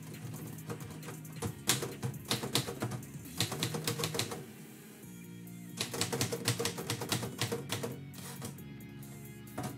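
Manual typewriter keys striking the platen in quick runs of keystrokes, with a pause of about a second in the middle before the typing picks up again.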